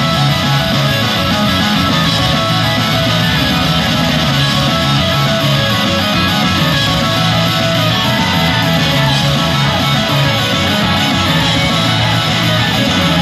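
Loud rock-style idol pop with distorted electric guitar strumming and a steady beat, an instrumental passage without singing.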